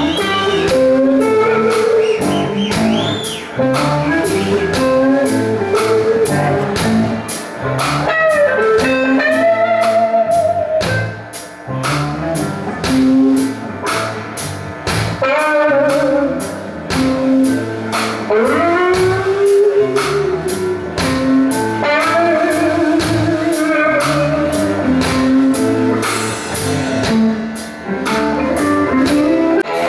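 Rock band playing: electric guitar over a drum kit with a steady beat, with notes bending up and down.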